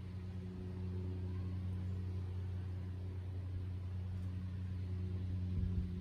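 Steady low mechanical hum of a running motor or engine, with a dull thump near the end.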